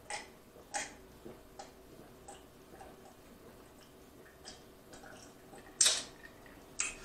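A man gulping down a drink, swallowing about every half second: two strong gulps at the start, then fainter ones. Near the end a louder breath as he stops drinking.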